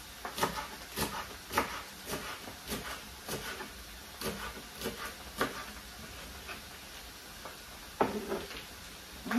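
Kitchen knife chopping garlic chives on a wooden cutting board: sharp knocks of the blade on the board, about two a second, thinning out after about five seconds, with one louder knock near the end.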